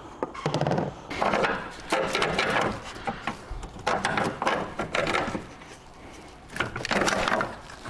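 A run of scraping and knocking bursts as a bolted metal plate beside the gearbox is worked loose and pulled off, its two 10 mm bolts just removed.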